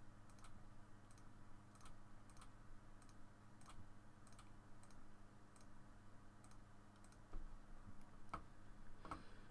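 Faint computer mouse clicks, about one to two a second at a fairly even pace, over a low steady hum.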